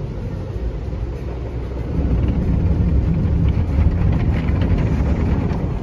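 Rotating car wash brush scrubbing along the side of the car, heard from inside the cabin: a low rumbling swish that grows louder about two seconds in.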